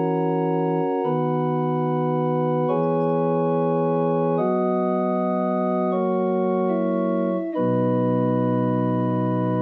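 Slow, reflective organ music: held, sustained chords that move to a new chord about every second and a half.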